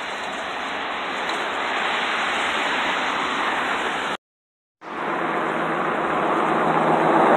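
Steady rushing noise of a moving car, wind and road noise on a phone microphone. It breaks off for about half a second around four seconds in, then comes back and grows louder.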